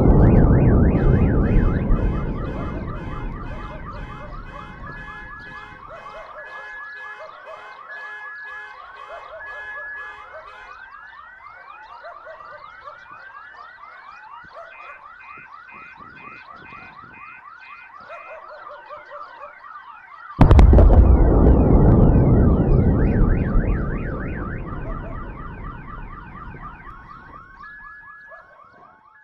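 A loud, deep boom reported as a skyquake, rumbling and dying away over several seconds, with several car alarms it set off wailing and beeping. About twenty seconds in a second loud boom hits and rumbles away while the alarms keep going.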